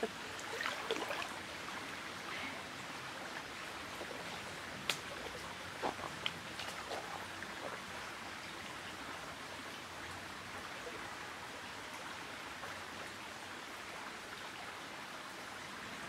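Creek water running with a steady rush, with a few faint ticks about five and six seconds in.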